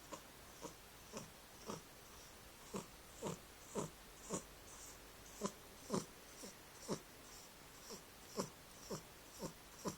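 A young cat snoring in her sleep: short, faint snoring snorts in a steady run, about two a second, each dropping slightly in pitch with a breathy hiss.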